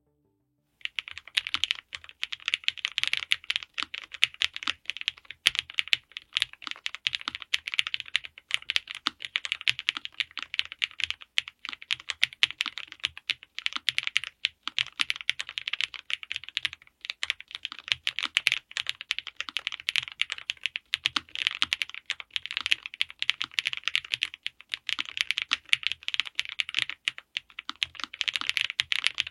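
Rapid, irregular clicking that starts about a second in and goes on without a break.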